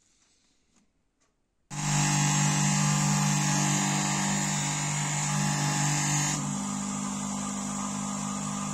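Bench grinder running a felt polishing wheel, cutting in suddenly about two seconds in with a steady motor hum and a bright hiss as the sculpture adze's blade is polished against the wheel. About two-thirds of the way through, the hiss drops away and the motor's hum carries on as the wheel spins free.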